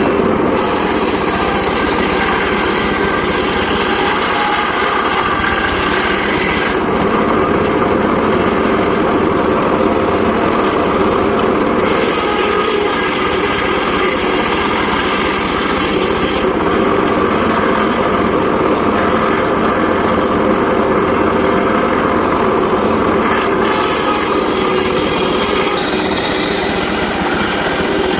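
Homemade circular saw running steadily while sawing sengon laut wood. A high hiss comes and goes every few seconds over a constant drone.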